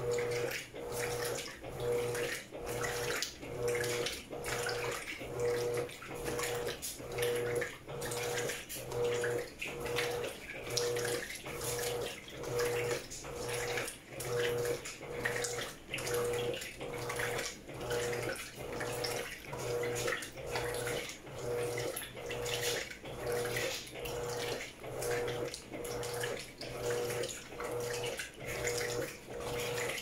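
Electrolux top-load washing machine agitating a heavy king-size blanket in a full tub of water. The agitator motor hums in even strokes about once a second, each stroke churning and sloshing the water.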